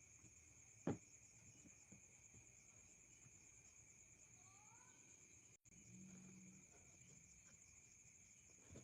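Near silence with a faint, steady high-pitched hum and a single sharp knock about a second in.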